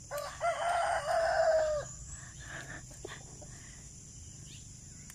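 A rooster crows once, a held call nearly two seconds long, over a steady high chirring of insects. Faint rustles of leaves follow as sweet potato tops are picked.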